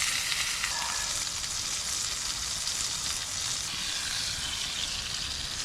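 Steak frying in hot oil in a pan over a campfire, a steady sizzle.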